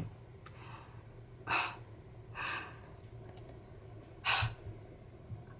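A man's heavy breaths, three of them a second or two apart, gasping in excitement, over a faint steady low hum.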